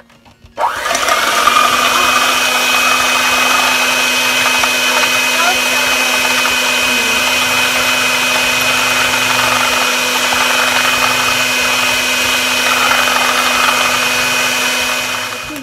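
Electric mixer running at one steady speed, beating a pudding batter; it starts about half a second in with a short spin-up and stops near the end.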